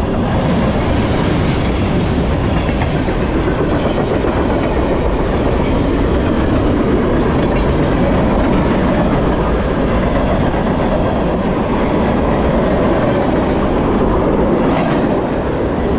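Two manifest freight trains rolling past each other at close range, with tank cars, boxcars and open-top cars going by. Their steel wheels on the rails make a steady, loud rumble and clatter.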